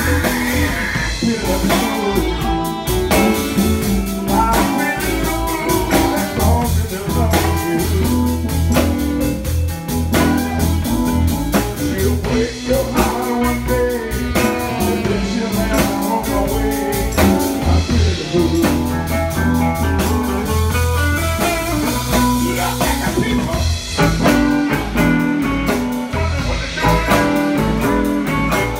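Live blues band playing a groove: electric guitar over a drum kit, loud and steady throughout.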